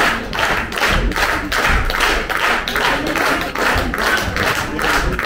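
Audience clapping in unison, a steady rhythmic beat of about three claps a second.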